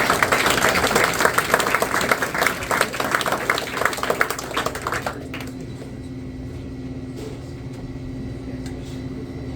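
Audience applauding, with many hands clapping. It dies away about five seconds in, leaving a steady low hum.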